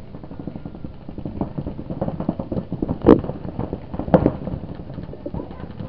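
Paintball markers firing across the field as a steady clatter of quick pops, with two louder, closer shots about three seconds in and about a second later.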